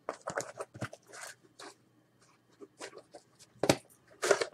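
A cardboard shipping box being cut open with a knife and pulled apart: a run of short scrapes, rustles and taps, with sharper clicks near the end.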